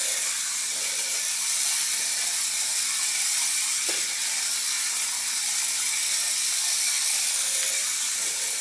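Tiny electric drive motor and gears of a 1:64-scale Adventure Force Nano Racers RC Bronco whirring steadily as the little truck drives.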